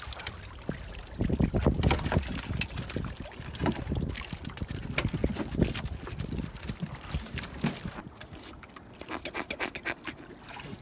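Knocks, rattles and scraping as a wire-mesh fish trap is handled on a boat, over a steady low rumble.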